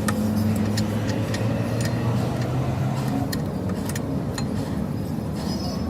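An engine or motor running steadily, with scattered metallic ticks and taps of tool work over it.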